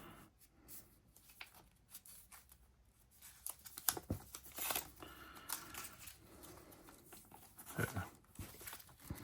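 Paper leaflets and card from a phone box being handled, a soft rustling and crinkling with small taps. Nearly quiet at first, busier from about three and a half seconds in.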